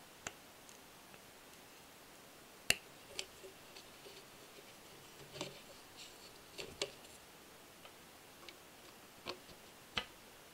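Small plastic wire connectors on a metal engine model kit clicked together and the wires handled: scattered light clicks and taps, the sharpest about two and a half seconds in. A last click near the end as a DC power plug is pushed into its socket.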